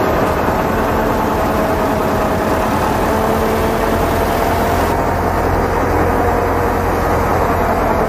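Heavy engine running steadily, a constant low drone with a few held tones, typical of the backhoe loader working on the site.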